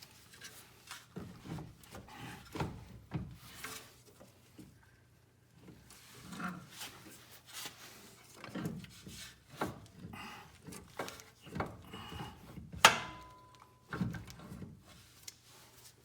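Scattered knocks and scraping as a front driveshaft axle is worked into the wheel hub bearing, with one sharp metallic clank late on that rings briefly.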